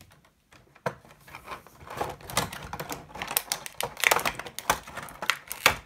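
Small plastic toy pieces and their packaging handled on a tabletop: a quick, irregular run of clicks, taps and rustles that starts about a second in.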